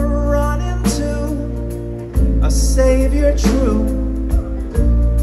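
Live acoustic band of guitar, banjo, upright bass, cello, fiddle and drums playing a slow song with long held chords that change every couple of seconds, with a voice singing over it.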